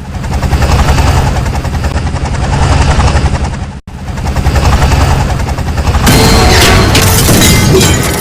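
Helicopter rotor and engine running loud and close, a dense pulsing chop, cut short for an instant about four seconds in. From about six seconds in it turns harsher, with sharp cracks and rattling over the drone.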